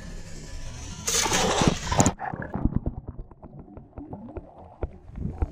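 Water splashing hard for about a second as a barramundi is let go at the surface, then the sound turns suddenly muffled as the microphone goes underwater, with scattered sharp clicks and knocks.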